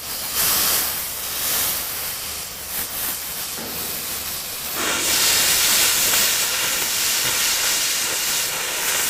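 Cutting torch hissing steadily as it cuts through a rusted steel tank; the hiss gets louder and brighter about five seconds in.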